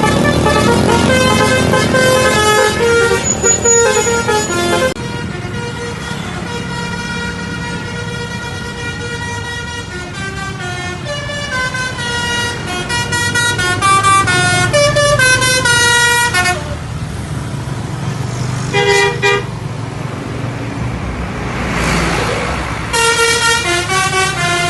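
Basuri 'telolet' multi-tone bus horn playing a quick stepping melody again and again over the bus engine's low running. The tune breaks off for several seconds past the middle, where a brief burst of noise is heard, and starts again near the end.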